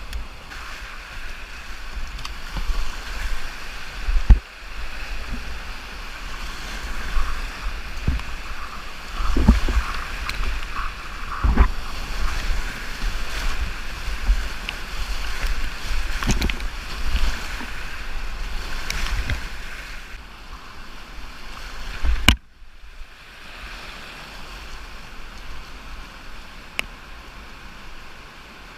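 Rushing whitewater with wind buffeting a GoPro microphone, and several low thumps. About three-quarters of the way through, a sharp click cuts to a quieter stretch of steady water noise.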